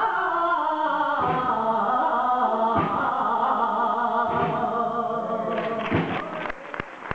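A male saeta singer holds the long, wavering closing note of a saeta (a flamenco Holy Week lament), over a slow drum beat about every second and a half. The song ends near the end and applause breaks out.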